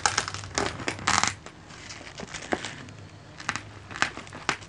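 Knife cutting into the crispy roasted skin of a lechon belly roll: a dense run of sharp cracks and crunches for about the first second and a half, then a few scattered single cracks.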